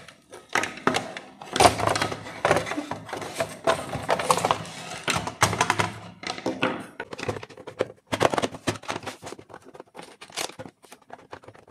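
Irregular plastic knocks, clicks and rattles as a plastic switch board's front plate is handled and fitted onto its plastic back box.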